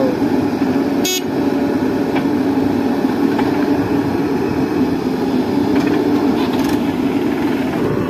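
Diesel engines of a JCB 3DX backhoe loader and a tractor running steadily while the backhoe digs and loads soil, with a brief sharp click about a second in.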